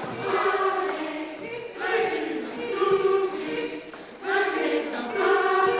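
A group of voices singing a chant together without instruments, in short phrases repeated about once a second.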